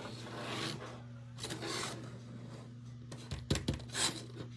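Rubbing, scraping noises in three swishes, with a few sharp knocks just past the middle, over a steady low hum.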